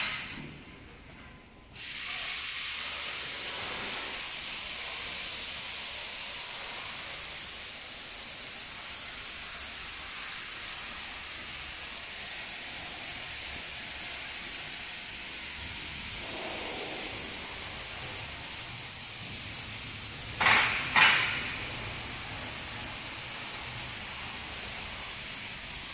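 A steady hiss starts suddenly about two seconds in and runs on evenly, with two short sharp knocks close together near the end.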